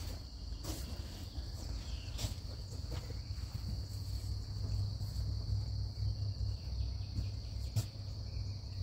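Steady, high-pitched insect chorus from the riverbank woods, with a low rumble underneath and a few faint knocks.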